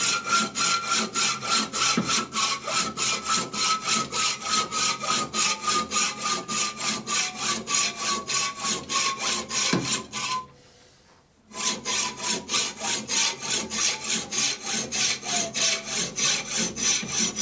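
Hand hacksaw cutting through metal stock in quick, even strokes of about four a second, with a short pause about ten seconds in before the sawing resumes. A faint ringing tone slowly falls in pitch throughout.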